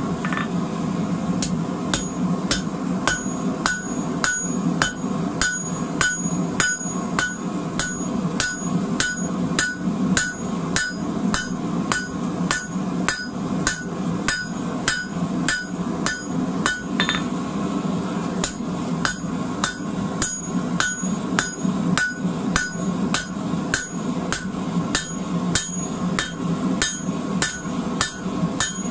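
Blacksmith's hand hammer striking a red-hot square steel bar on an anvil, about two blows a second. Each blow has a high ring, over a steady low hum.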